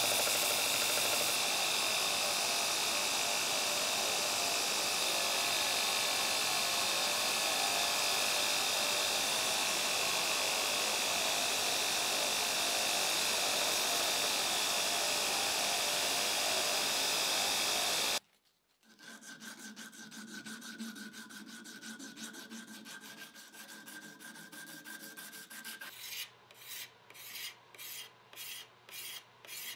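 2x48 belt grinder running steadily with the abrasive belt on the work, cutting off abruptly about two-thirds of the way in. Then quieter hand rubbing strokes, settling near the end into about three strokes every two seconds.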